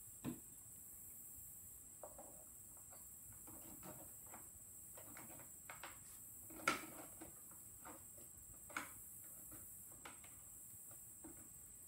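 Wooden corner columns of a Victor V phonograph cabinet being pushed into place, giving faint, irregular squeaking and knocks of wood on wood. The loudest knock comes a little past halfway.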